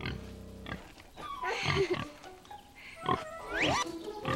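A pig oinking and squealing a few times, with a rising squeal about three and a half seconds in, over light background music.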